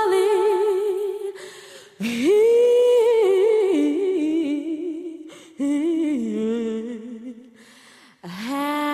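A woman's solo singing voice with little audible backing: long held notes with vibrato and ornamented runs, in four phrases separated by short pauses, the later phrases opening with an upward slide in pitch.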